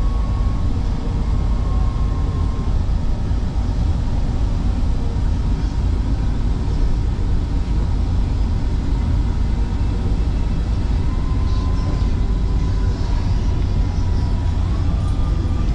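MRT Line 3 light-rail train running, heard from inside the car: a steady, loud low rumble with a faint whine that rises slightly near the end.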